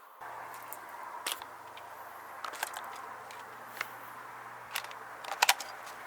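Airsoft gun fired in a few irregular single shots, heard as sharp clicks, the loudest pair about five and a half seconds in, over a steady low hum.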